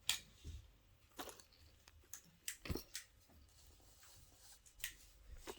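Fidget toys being handled and pressed: a handful of small, scattered clicks and taps with quiet between them.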